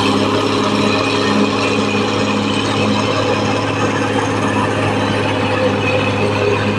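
Caterpillar D6R XL bulldozer running steadily under a loud, even diesel engine hum, with a rapid mechanical clatter over it.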